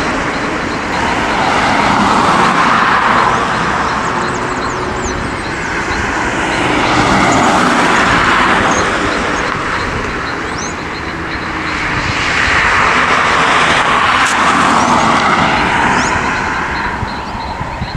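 Distant jet noise of an approaching Boeing 737-400 freighter's CFM56 turbofans on final approach: a steady rushing that swells and fades every few seconds.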